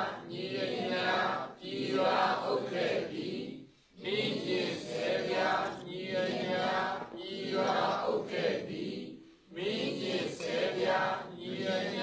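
A congregation chanting a Buddhist recitation in unison, in short repeated phrases with brief pauses between them.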